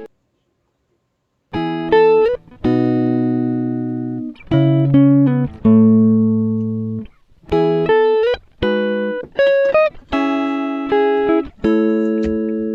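Background music of plucked guitar notes and chords, each ringing and fading, starting after a second and a half of silence.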